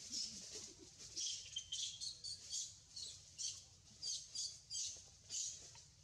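Small birds chirping: short high-pitched chirps repeating about two or three times a second.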